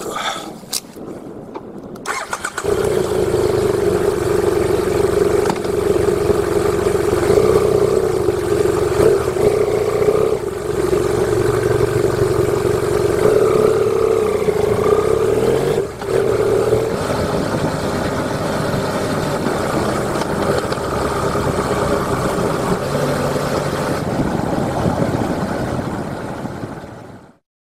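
BMW F800GS parallel-twin motorcycle engine running as the bike rides off and cruises, with wind and road noise. It is quieter for the first two seconds, then loud and steady, and fades out just before the end.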